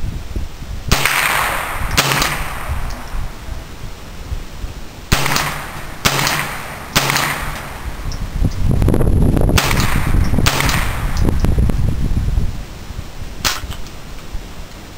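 AR-15 rifle with a CMMG .22 Long Rifle conversion bolt firing about seven single shots at irregular intervals of one to three seconds, each a sharp crack with a brief echo.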